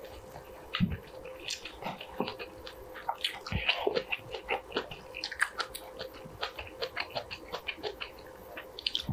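Close-miked chewing of braised kimchi and rice: many quick, irregular wet smacks and clicks of the mouth, with a couple of dull knocks.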